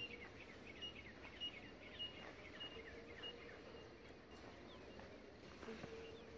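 Faint birdsong over low outdoor background noise: a run of quick falling chirps through the first few seconds and a short high note repeated every half second or so.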